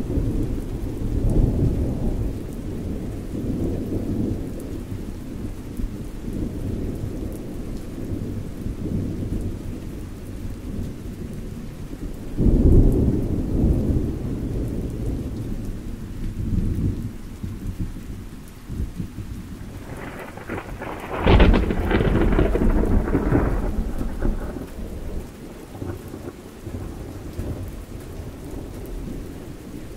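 Small brush wet with DeoxIT scrubbing the pins of a Fender Twin Reverb's output tube socket: a rumbling, rustling rubbing noise that gets louder about 12 seconds in and again, scratchier, about 21 seconds in.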